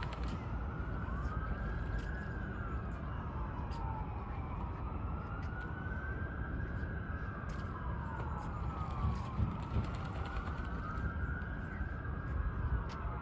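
An emergency vehicle siren wailing, its pitch slowly rising and falling about every four to five seconds, over a steady low rumble.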